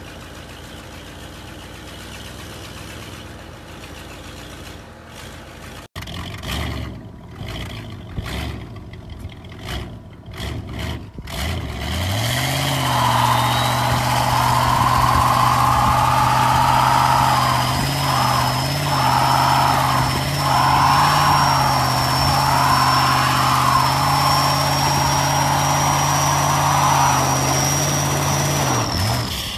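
Old rat-rod pickup engine idling; then another old pickup revving in short choppy bursts before its engine is held at high revs in a burnout, tyres squealing with a slowly rising high whine and a wavering screech, until the revs drop just before the end.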